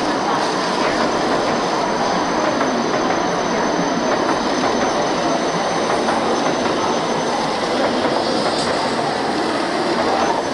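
A train running through the station: a loud, steady noise of wheels on rails, with a thin high tone that fades out partway through.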